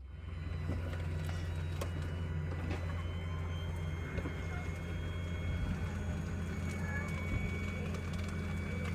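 Steady low rumble of a moving vehicle, with an even road-noise haze, a few faint clicks and a thin faint whine.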